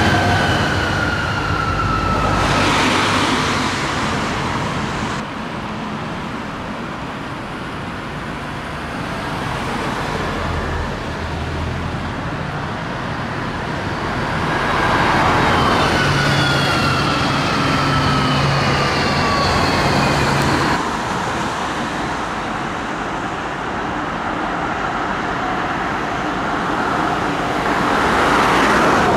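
Electric trams running along a city street over road traffic noise. The whine of a Bombardier Cobra low-floor tram's electric drive falls in pitch near the start and again around the middle.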